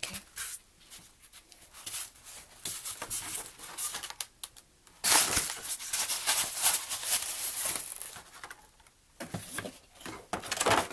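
Packaging being handled: paper and wrapping rustling in short bursts, then about three seconds of loud crinkling and tearing midway through, followed by more rustling.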